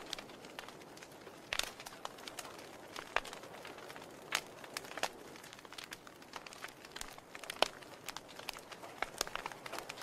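Wood fire crackling in an open fireplace: irregular sharp pops and snaps over a soft, steady rustle of burning logs, with the loudest snap about three-quarters of the way through.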